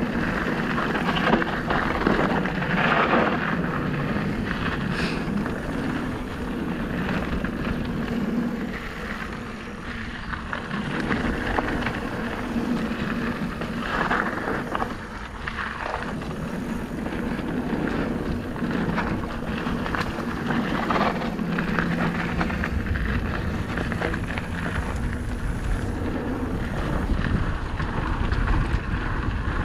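Merida eOne-Sixty 800 electric mountain bike riding fast down a gravel dirt trail: tyres crunching over loose gravel and the bike rattling over bumps, with a few sharper knocks, and wind buffeting the microphone.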